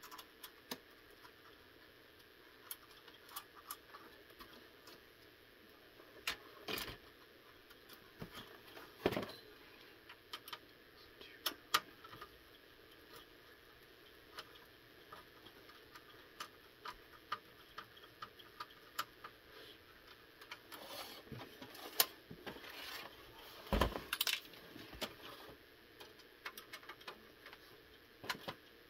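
Irregular clicks, taps and rattles of an Xbox 360 Trinity console's plastic shell and metal chassis being handled and taken apart by hand, with a few louder knocks scattered through.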